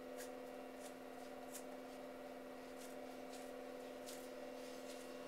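VibePlate vibration platform running at setting 20, giving a low steady hum. A few short, faint hisses sound over the top.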